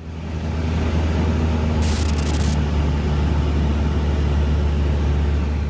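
Steady roar of rushing water pouring through a dam or flooded channel, heavy in the low end, with a brief hiss about two seconds in.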